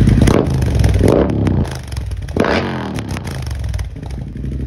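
Triumph Bobber's 1200 cc parallel-twin engine revved in three quick throttle blips, then settling to a steady idle near the end.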